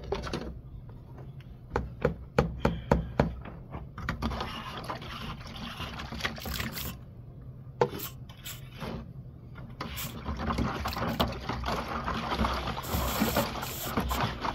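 Hard plastic float spreading and scraping wet acrylic stucco finish over a foam board, a wet smearing scrape that comes and goes. A quick run of sharp knocks sounds about two seconds in.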